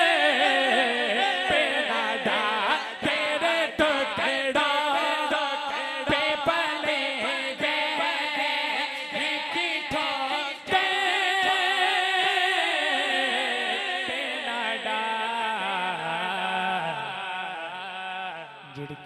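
A man's solo voice singing a naat without instruments into a microphone, drawing out long, wavering, ornamented notes; the singing grows softer near the end.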